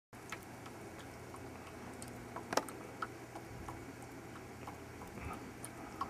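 Wet snow falling: a faint steady hiss with scattered, irregular light ticks, and one sharper tap about two and a half seconds in.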